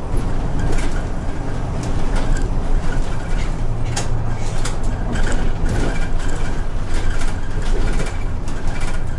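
Isuzu city bus driving along a street, heard from inside the cabin at the front: a steady low engine drone with road noise and scattered short clicks.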